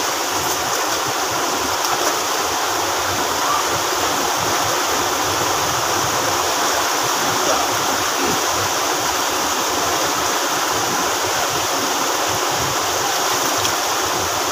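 Fast-flowing stream rushing over boulders and small cascades: a steady rush of water.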